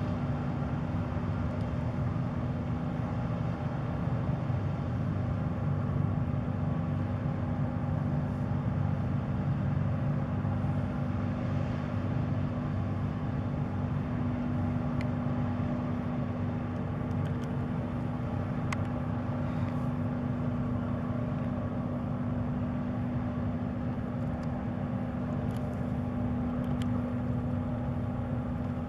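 Steady low drone of the inland cargo ship Aquarant's diesel engine as it passes, holding one even hum throughout, with a few faint clicks.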